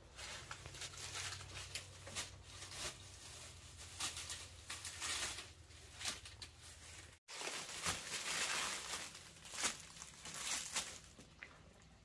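Rustling and crinkling from material being handled, coming in irregular surges, with a sudden short break about seven seconds in.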